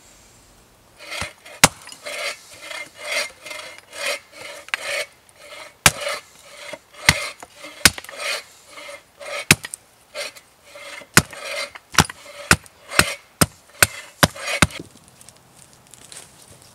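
Small hatchet working a thin stick of wood: a run of quick rasping strokes, about two a second, mixed with sharp wooden knocks, starting about a second in and stopping near the end.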